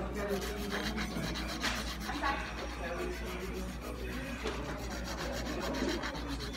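A nail file rasping across fingernails in quick, repeated scraping strokes during a manicure.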